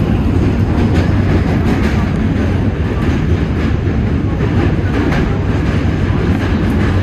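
New York City subway train running at speed, heard from inside the car: a loud, steady rumble of wheels on rails with occasional faint clicks.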